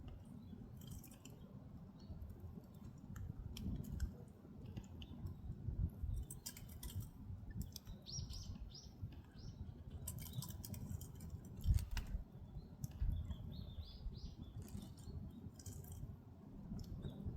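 Wood fire crackling in an agungi, the firebox under a Korean ondol floor: a low rumble of flame with scattered pops and one louder crack about two-thirds of the way through. Twice, a short run of high chirps, like a small bird, rises over the fire.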